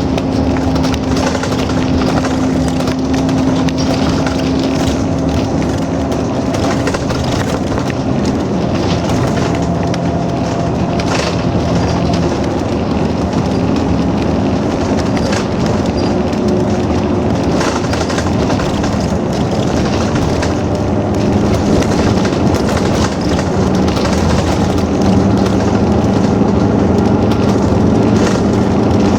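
Bus engine and road noise heard from inside the cabin while driving, a steady running drone whose engine note shifts in pitch several times.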